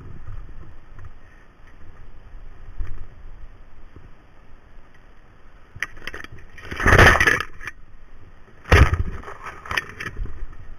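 Scraping and rubbing of a tree climber moving against bark and rope, close to the microphone. There is a longer scrape about seven seconds in and a short sharp one near nine seconds, followed by a few clicks.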